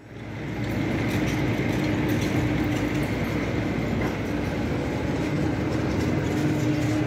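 Schwing SP 1400 stationary concrete pump running, a loud, steady machine drone with a held hum. It fades in over about the first second.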